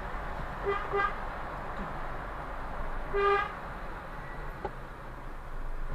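Car horn honking: two quick short toots about a second in, then one longer, louder toot about three seconds in, over the steady hum of a car on the move.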